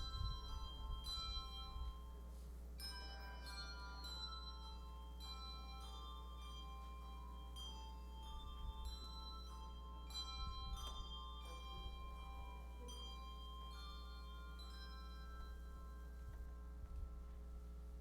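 Quiet, slow music of struck bell-like tones: overlapping notes that ring and die away, over a steady low electrical hum.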